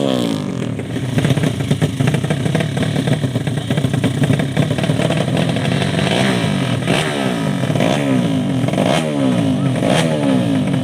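Drag-racing underbone motorcycle engine revved repeatedly, its pitch falling back after each blip of the throttle, several times in the second half.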